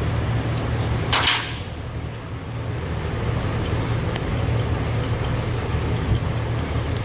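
A short hiss of an aerosol can about a second in, white lithium grease sprayed onto the shifter bushings, over a steady low hum.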